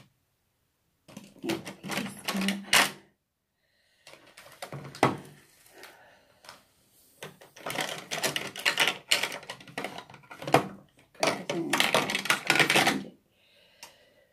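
Rapid clicking and rattling of small plastic makeup items being handled close to the microphone, in two spells: a short one about a second in and a longer one from about halfway to near the end.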